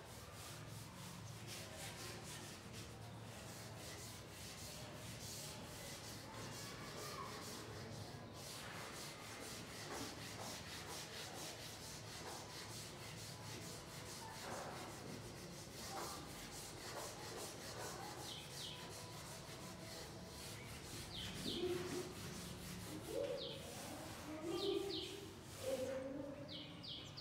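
Chalkboard duster wiping a blackboard in quick repeated strokes, a steady scratchy rubbing. A few short high chirps come near the end.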